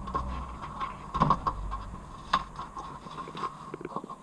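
Fingers scratching at and peeling an adhesive sticker off a car's steel chassis rail: scattered small clicks and scrapes. A low rumble under them fades out about two seconds in.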